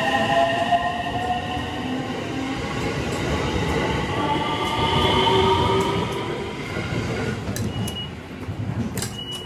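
Electric train running, its motor whine rising slowly in pitch as it picks up speed over a steady rumble of wheels on rails, then fading away after about six seconds.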